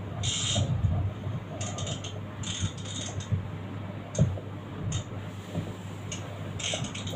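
Fishing reel clicking and whirring in short bursts, about eight times, as a hooked fish is played up to the boat, over a steady low hum.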